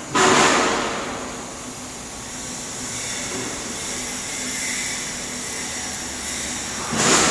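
Stick-welding arc from an E7018 electrode, burning with a steady crackling hiss, with a sudden louder surge just after the start that settles over about a second and another brief surge near the end.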